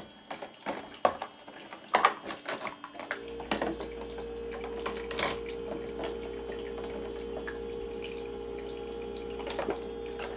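Plastic toy dishes knocking together in a plastic play sink, then about three seconds in the toy faucet's small electric pump switches on and runs with a steady hum as water flows from the spout.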